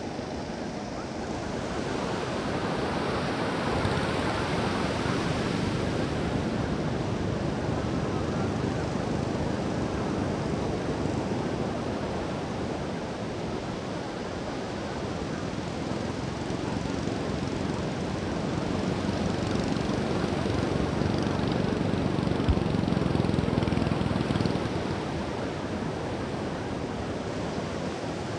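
Sea surf breaking and washing up a sandy beach, a steady rush that swells twice, a few seconds in and again near the end.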